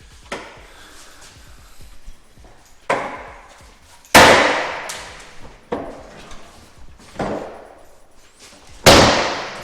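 Footsteps coming down the rungs of a Werner folding attic ladder: six heavy steps about a second and a half apart, each ringing briefly. The third and last steps are the loudest.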